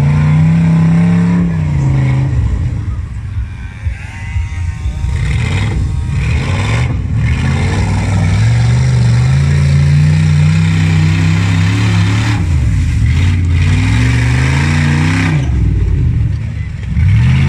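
Off-road vehicle's engine revving hard, its pitch rising and falling several times, with long stretches held at high revs.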